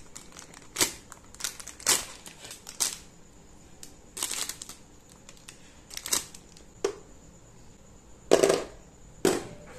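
Thin clear plastic bag crinkling in short bursts as it is opened and the spinning-top parts are pulled out, with a couple of fuller plastic clacks near the end as parts are set down on the plastic stadium.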